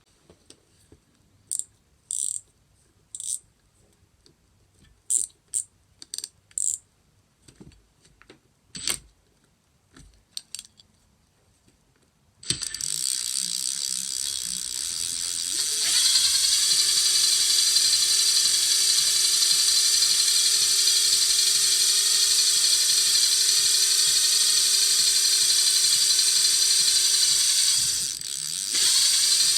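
A string of sharp mechanical clicks, then a Makita cordless impact wrench driving a homemade fishing-line winder spool. Its motor whines as it spins up about halfway through, steps up to a higher, louder steady speed a few seconds later, and slows briefly near the end before speeding up again.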